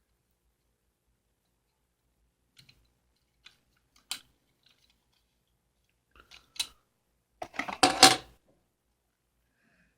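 A toy box and its packaging being handled and pulled open by hand: a few scattered clicks and crinkles, then a louder cluster of crackling about three-quarters of the way in.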